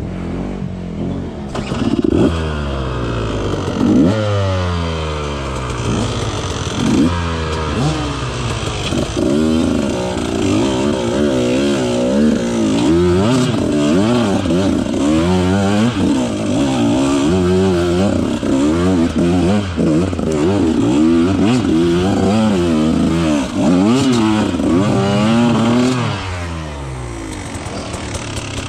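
2018 KTM 150 XC-W's 150cc two-stroke single-cylinder engine being ridden off-road, its revs rising and falling over and over in quick throttle blips. Near the end it drops back to a lower, steadier note.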